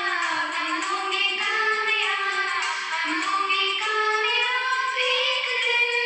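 A woman singing a prayer in slow, long held notes that glide gently from one pitch to the next.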